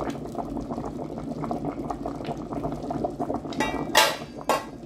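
Pot of potato chunks at a rolling boil, the water bubbling steadily. Three sharp knocks come near the end, the loudest about four seconds in.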